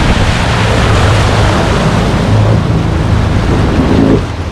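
Small boat's outboard motor running at speed with wind and water rushing past the hull, the motor's steady hum under a loud rush of noise. A little after four seconds in the motor note and the rush drop off as the boat slows.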